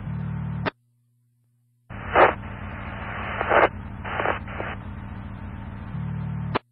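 Fire-radio channel heard through a scanner: an open transmission of static hiss cuts off sharply, then after about a second of dead air another keyed transmission comes in with hiss and a few garbled, unintelligible fragments. It ends with a short squelch tail and a click.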